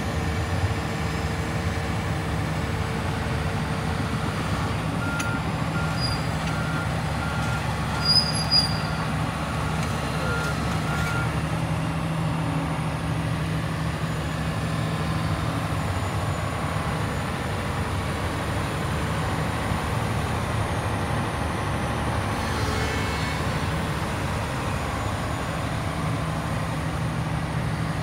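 John Deere 450CLC hydraulic excavator's 12.5-litre PowerTech diesel running steadily while the boom and arm are worked. About five seconds in, a warning alarm beeps evenly, a little under twice a second, for about six seconds, and two short sharp sounds stand out about eight seconds in.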